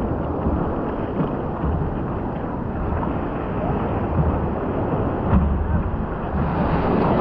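Wind buffeting the microphone over ocean surf washing and sloshing around a surfboard at water level; a steady, rumbling noise with no distinct events.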